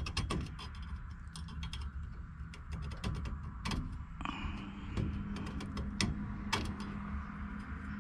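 Irregular light clicks and scrapes of small metal hand tools being handled, while working on a freshly cut copper pipe. A low steady hum comes in about halfway through.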